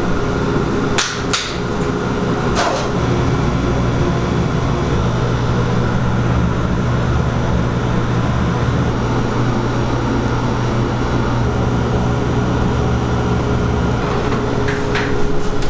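Laser cutter running as it cuts plywood: a steady low machine hum, with a few sharp clicks about a second in and a couple more near the end.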